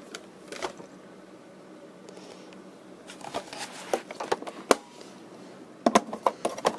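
Handling noise from a hard plastic clamshell radio case: scattered clicks and taps as it is gripped and turned, with a quick run of sharper clicks near the end.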